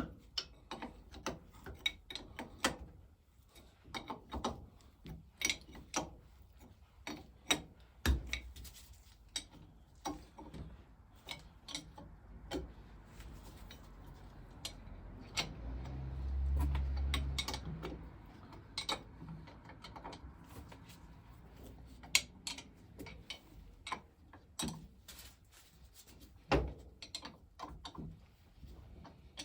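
Irregular light clicks and knocks of metal parts and hand tools being handled while the water pump is put back together, with a low rumble for a couple of seconds about halfway through.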